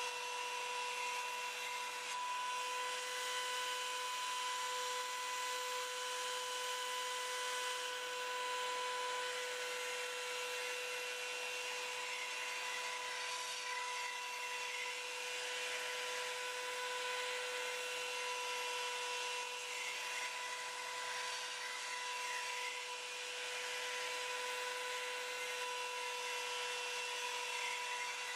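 Electric belt sander running with a steady whine while its abrasive belt grinds the steel edge of a scythe blade, giving a continuous hiss.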